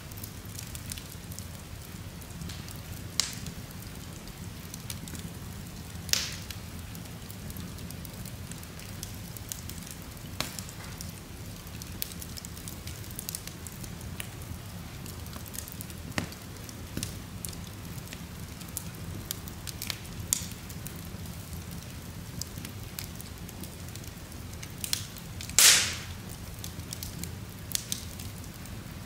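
Wood logs burning in an open fireplace: a steady low rumble of flame with scattered sharp crackles and pops, the loudest pop near the end.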